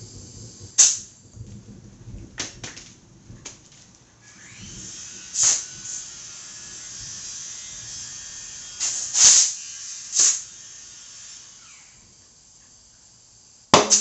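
Compressed air hissing into a motorcycle tire through an air hose, with several short loud bursts of air. A sharp pop comes just before the end as the tire's bead seats on the rim.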